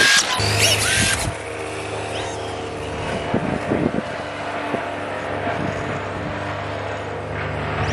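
Electric motor of a Losi Promoto-MX RC dirt bike whining as the bike rides close past. The whine sweeps up and down in pitch for about the first second, then drops to a fainter, steadier sound as the bike moves away.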